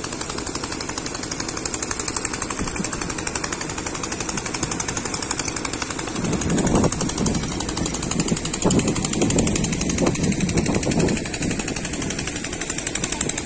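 Small engine running steadily with a rapid, even chugging: the pump feeding the pressure hose that washes flood silt off the ghat. A louder, lower rumble comes in about six seconds in and fades by eleven seconds.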